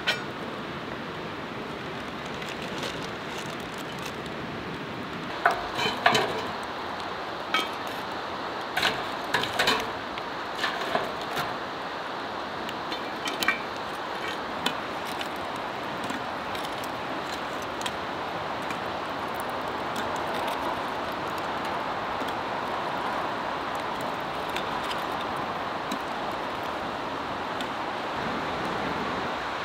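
Cast iron clinking and knocking as the lid goes onto a Dutch oven hung over a campfire and hot coals are set on top of it. The clinks come in a cluster a few seconds in, over a steady rushing noise.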